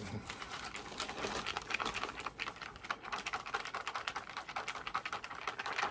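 Plastic pouches of an MRE flameless ration heater crinkling and rustling in the hands, a rapid irregular crackle, as the activator is poured into the heater bag.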